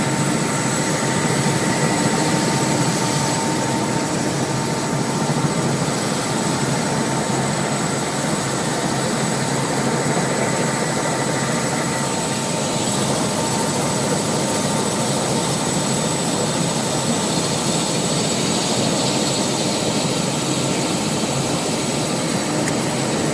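Helicopter in flight: steady turbine and rotor noise with a thin, steady high whine running through it.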